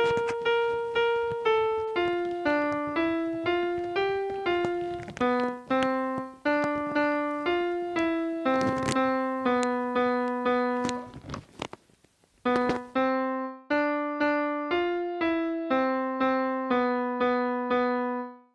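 Piano music: a simple melody of single struck notes, about two a second, each fading after it is played, with a brief pause about twelve seconds in.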